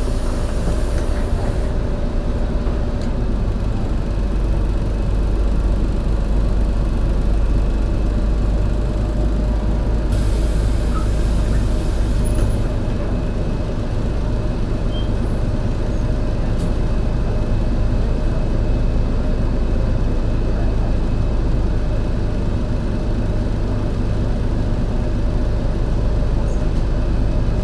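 MAN NL202 CNG city bus running under way, its gas engine and ZF Ecomat automatic gearbox giving a steady low drone; the engine has a bad misfire. About ten seconds in comes a hiss of compressed air from the bus's air system, lasting a couple of seconds.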